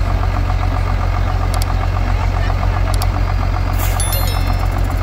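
A tractor engine idling steadily, a low even drone. Several sharp clicks, and about four seconds in a click with a short high chime: an edited-in subscribe-button sound effect.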